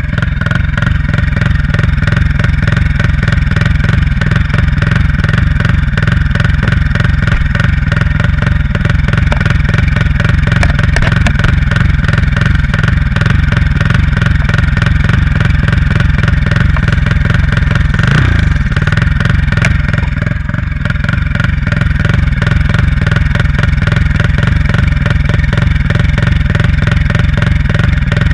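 Turbocharged Honda Titan 160 single-cylinder motorcycle engine running steadily, with the turbo blowing and no flutter. About two-thirds of the way through, the engine note falls briefly and then picks up again.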